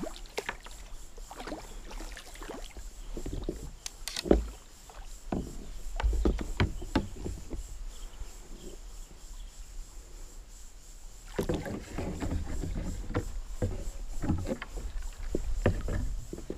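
Kayak paddle dipping and splashing in the water, with dripping and irregular sharp knocks; the loudest knock comes about four seconds in.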